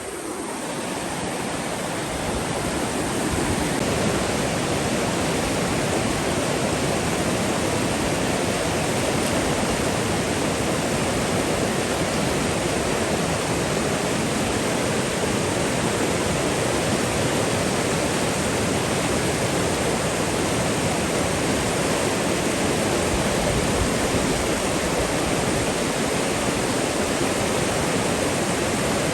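Flood-swollen river rushing steadily, a loud, even sound of fast water that swells slightly over the first few seconds.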